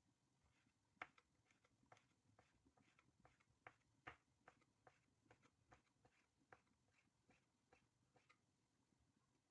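Faint, irregular light taps and clicks, two or three a second.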